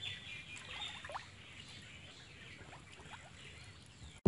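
Faint outdoor birdsong: small birds chirping, with a few short rising squeaky calls about a second in and again near three seconds.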